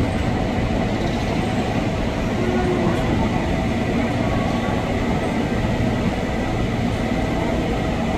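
Steady rumble of a KRL commuter electric train at close range, with a faint, thin, steady whine over it.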